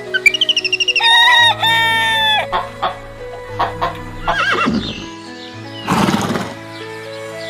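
A rooster crowing once, a long pitched crow about a second in, over background music. Two rougher, harsher animal calls follow, around four and six seconds in.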